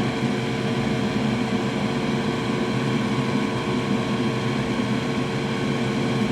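Steady whir of an electric fan or blower motor with a constant hum, unchanging throughout.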